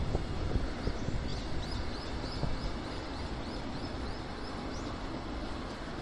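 JR container freight train rolling past: a steady low rumble of the loaded container wagons on the rails. A faint, quick, high chirping repeats about three times a second through most of it.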